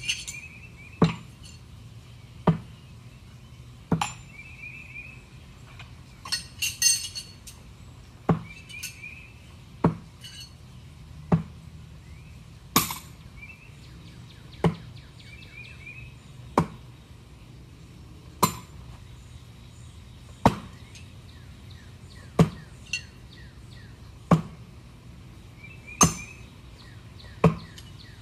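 Throwing knives striking a wooden target one after another, a sharp hit with a metallic clink about every two seconds.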